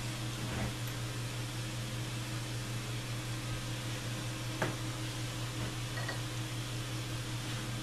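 Steady low background hum, with a few light clicks of small metal engine parts being handled as a gear comes off the oil pump. The sharpest click falls about halfway through.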